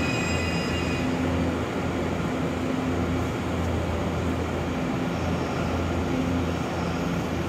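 Electric train at a station platform, its equipment giving a steady low hum, with a high whine that fades out about a second in.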